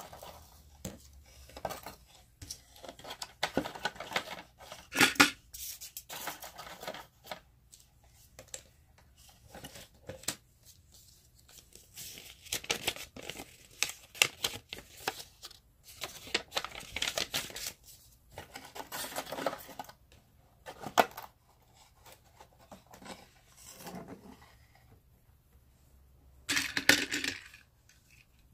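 Hands opening a cardboard toy-train box and pulling out its paper and plastic packaging: tearing, rustling and crinkling in irregular bursts with small knocks, the loudest about five seconds in and a longer burst near the end.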